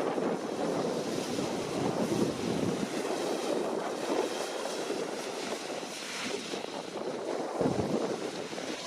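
Deutz-Fahr C9306TS combine harvester running as it works, heard as a rushing, uneven noise with wind buffeting the microphone.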